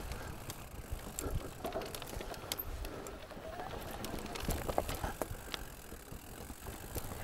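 Mountain bike ridden over a rough trail: steady tyre rumble with scattered clicks and rattles from the bike.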